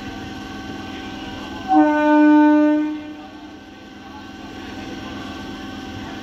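An old electric multiple-unit (EMU) train's horn sounding one steady single-tone blast of a little over a second, about two seconds in, over the steady electrical hum of the standing train.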